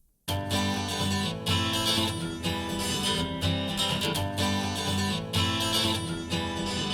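Music starts after a moment of silence: an acoustic guitar strumming with a steady rhythmic accompaniment.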